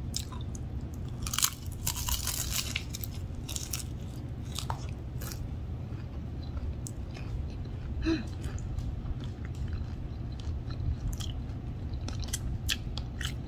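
Close-miked chewing of a crispy fried egg roll: crunchy bites about one to three seconds in, then softer wet chewing and mouth clicks. A steady low hum runs underneath.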